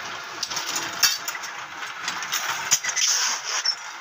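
Rice being roasted in an iron pan on a clay oven for puffed rice: a steady crackling hiss, with scattered knocks and clinks of the iron pan.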